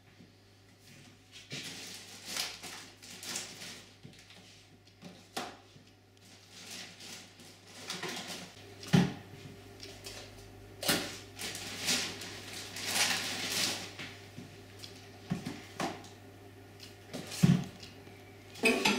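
Kitchen clatter: scattered knocks, clicks and rustling as dishes, containers and cupboard or drawer doors are handled at a worktop, with sharper knocks in the second half over a faint steady hum.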